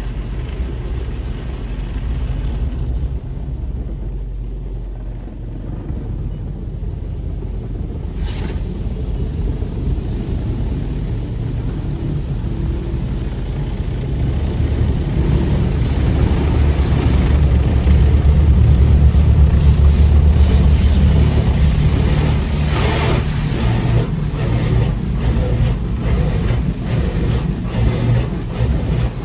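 Automatic tunnel car wash heard from inside the car: a steady low rumble of water jets and machinery drumming on the body, swelling louder midway, with a run of quick slaps in the second half as the spinning cloth brushes beat across the windshield and hood.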